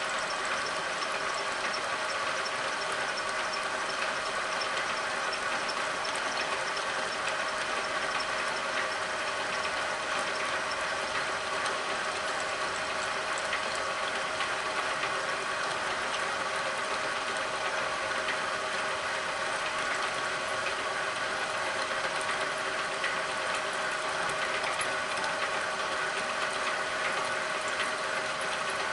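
Milling machine running with its end mill cutting a cam lobe while the table feeds and the dividing head slowly turns the blank: a steady machining hum with a few steady tones.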